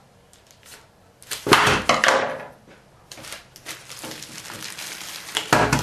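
Noisy crinkling and rustling of a clear plastic bag around a monopod as it is handled, loudest in a burst about a second and a half in, with a softer stretch of rustling after it and another loud crinkle with a thump near the end.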